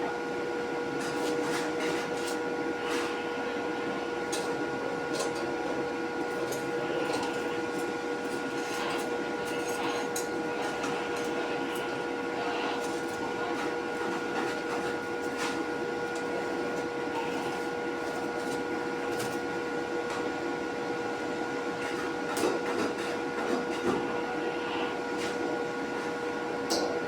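A machine running with a steady hum and whine, with scattered light clicks and a few knocks near the end.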